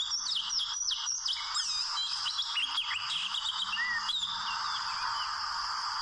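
Oriental magpie-robin singing: a rapid run of varied whistled notes and glides that stops about four and a half seconds in, over a steady high hiss.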